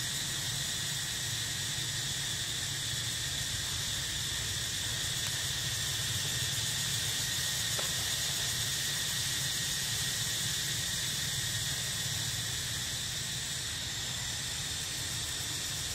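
Insects droning steadily and evenly, with a constant low hum underneath.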